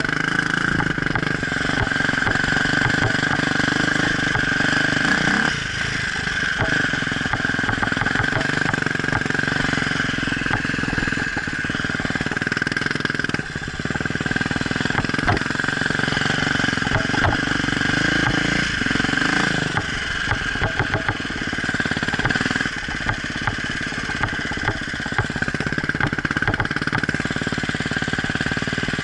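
Off-road enduro motorcycle engine running continuously, its revs rising and falling, with brief dips about five and thirteen seconds in.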